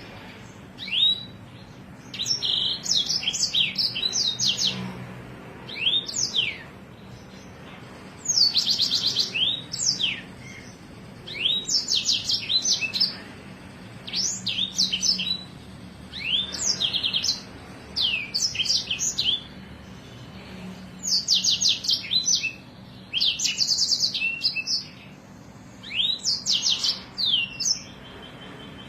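A songbird singing a masteran (tutor) song: short phrases repeated every couple of seconds, each a rapid high trill mixed with sharp falling whistled notes. These are the rolling trills (ngeroll) and piercing 'shot' notes (nembak) prized in Indonesian songbird training.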